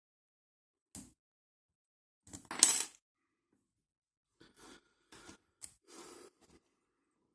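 Metal lock-picking tools and a padlock being handled: a click about a second in, a loud metallic clink about two and a half seconds in, then several short scrapes and clicks.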